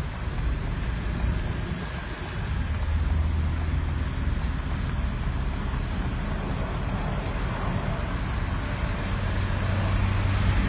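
Car engine and road noise heard from inside a slow-moving vehicle: a steady rumble, with a low engine drone that swells about a third of the way in and again near the end.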